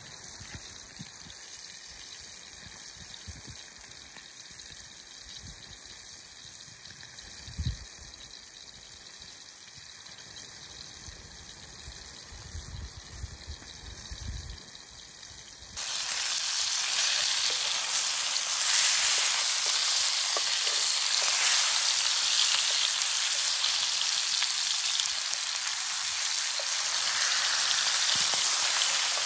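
Bacon-wrapped pork rolls sizzling loudly in a cast-iron skillet, the fat frying steadily; the sizzle cuts in suddenly a little past halfway through. Before that it is quiet, with only a few soft handling thumps.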